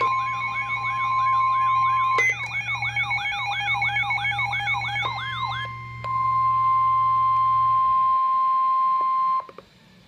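Several NOAA Weather Radio receivers alarming at once. Their warbling siren-style alert sounds stop about five and a half seconds in, over the steady single-pitch weather-radio warning alarm tone, which cuts off suddenly near the end: the signal that a warning message follows.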